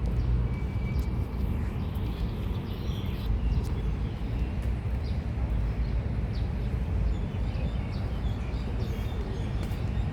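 Outdoor park ambience: a steady low rumble with faint, short bird chirps now and then.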